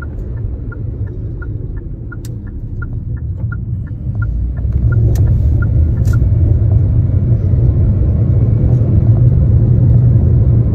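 Car turn-signal indicator ticking about three times a second, stopping about six seconds in as the turn is completed. Underneath is the low rumble of road and engine noise inside the cabin, which grows louder about four seconds in as the car speeds up.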